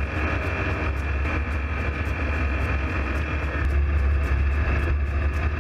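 Ultralight aircraft in flight: a steady, loud engine drone with wind rushing across the microphone in the open-sided cockpit.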